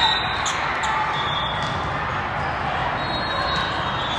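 Steady echoing din of a busy volleyball hall: sneakers squeaking on the court, balls being struck and bouncing, and distant voices blending together.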